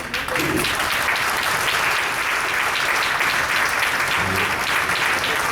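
A large room of diners applauding, a steady dense clapping that starts right away and holds at an even level.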